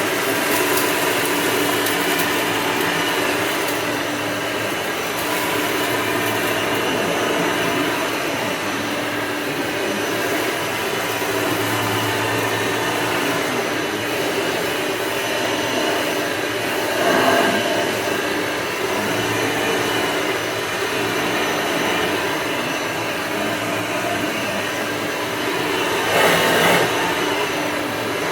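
Hoover Elite II upright vacuum cleaner running steadily, a continuous motor hum and rush of air. Its sound swells briefly twice, about two-thirds of the way through and again near the end.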